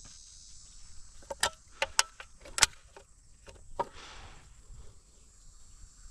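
A run of about six sharp metallic clicks and taps, bunched about one to four seconds in: a gun or its ammunition being handled. A steady high chirring of crickets runs underneath.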